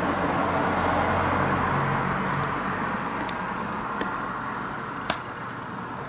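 Street traffic: a vehicle's steady rushing noise with a low engine hum, slowly fading away. A few sharp taps, the loudest about five seconds in.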